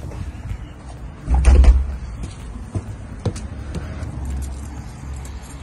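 A loud, low thud about a second and a half in, as the front door is pulled shut, then a few sharp footstep clicks on concrete steps over a steady low rumble.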